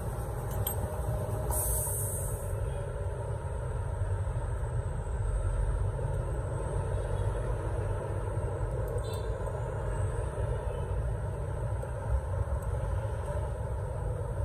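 Steady low rumble and hum of background machinery or traffic, with a brief high hiss about one and a half seconds in and a few faint clicks.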